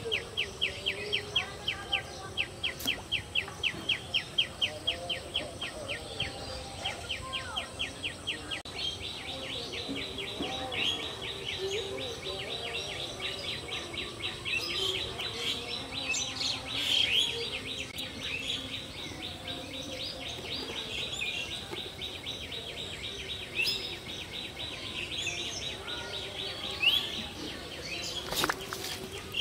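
Pond-side outdoor ambience: a high chirping repeated about five times a second, which turns into a faster, unbroken trill about nine seconds in, with scattered bird calls over it.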